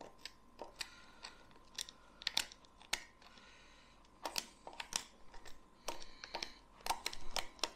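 Irregular small clicks, ticks and light scrapes of a screwdriver prying and turning at the valve end of a polyurethane foam gun seized with cured foam, metal tip against plastic and metal parts.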